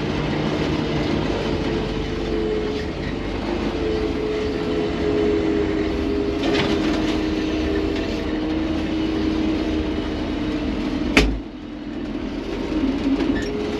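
John Deere combine harvester running, a steady mechanical drone with a held whine. One sharp knock about eleven seconds in.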